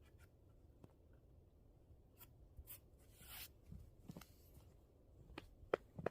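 Faint handling sounds: scattered small taps and clicks, a short scraping rustle about three seconds in, and a few sharper clicks near the end.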